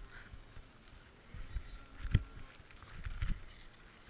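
Wind buffeting a GoPro camera in its housing as it falls: irregular low gusts of rumble, with a sharp knock about two seconds in.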